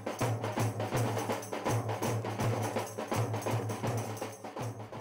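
Percussion-driven music: fast, even drum and wood-block-like strikes over a deep pulsing bass, fading near the end.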